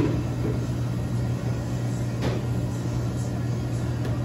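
Steady low hum of kitchen equipment, with a sharp knock right at the start and a faint click about two seconds in.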